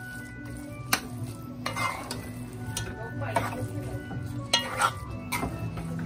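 Metal spoon stirring minced chicken in a sizzling frying pan, with several sharp scrapes and clinks of the spoon against the pan.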